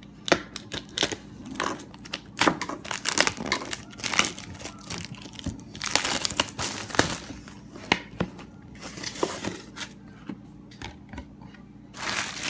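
Shrink-wrap plastic being torn and crumpled off a sealed cardboard product box: a run of sharp crinkling crackles, sparser for a few seconds, then a denser burst of rustling near the end.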